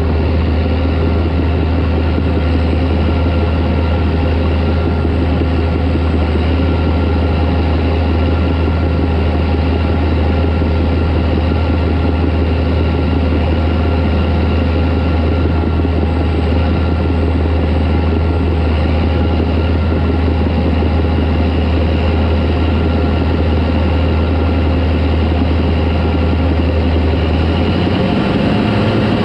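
Diesel engine of a Caterpillar D4 crawler tractor running steadily with a deep, heavy drone; the engine note changes about a second and a half before the end.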